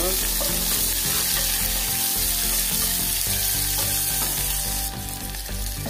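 Sliced onions sizzling in hot oil in a small pressure cooker, stirred with a wooden spatula as they fry toward golden brown. The sizzle turns a little quieter about five seconds in.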